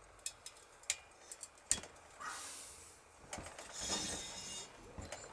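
A run of sharp metallic clicks and clinks from tools on a Yamaha XS650 cylinder head while a valve spring is compressed. Two longer hissy scraping noises follow in the second half.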